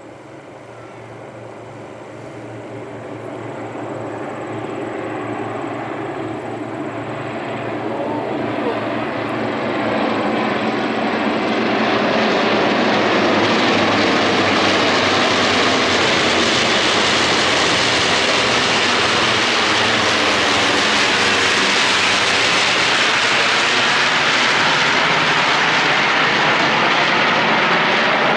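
B-25 Mitchell bombers' twin radial piston engines on a flyover, growing steadily louder over about twelve seconds as they approach, then holding loud and steady.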